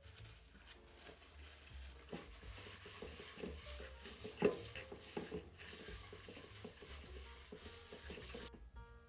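A paper towel rubbing around the inside of a stainless steel mixing bowl, spreading oil to grease it. Uneven scrubbing with a few knocks against the bowl, the loudest about halfway through.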